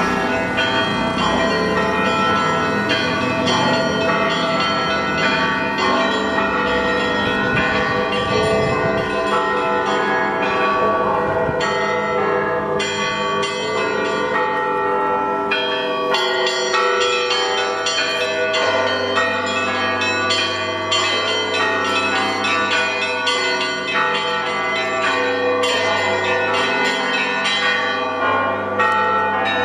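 Orthodox church bells ringing in a continuous dense peal, many bells of different pitches struck over and over. A low rumble sits under the ringing for the first several seconds.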